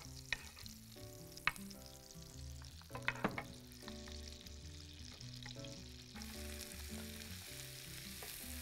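Butter and olive oil sizzling in a nonstick frying pan, with a few clicks of a wooden spoon against the pan. About six seconds in the sizzling grows brighter as chopped onion goes into the hot fat and is stirred.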